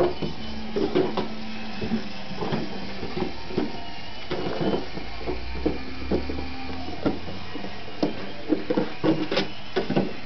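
A Siberian husky chewing and crunching an empty milk jug, with irregular crackling and clicking as the container is bitten and crushed.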